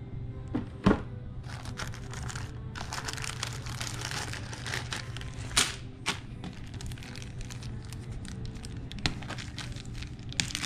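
Plastic zip-top bags crinkling and rustling as they are handled, with a few sharp clicks from the small wooden game pieces inside, over music in the background.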